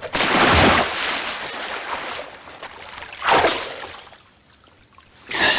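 A man in clothes falling into river water: a loud splash, then water sloshing and churning as he flounders, dying away over a few seconds. There is another short splashing burst about three seconds in and one more near the end. He has slipped on the muddy bank.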